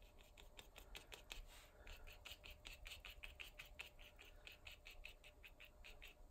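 Faint, quick scratching of a small synthetic watercolour brush (Princeton Snap) flicking short strokes across textured cold-press watercolour paper, about four or five strokes a second.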